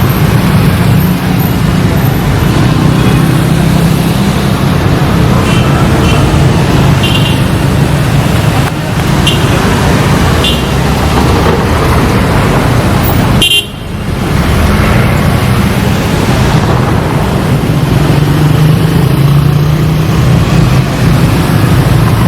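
Tour buses rolling past with a loud low engine rumble, and several short toots from their telolet musical horns about a quarter to two-thirds of the way through.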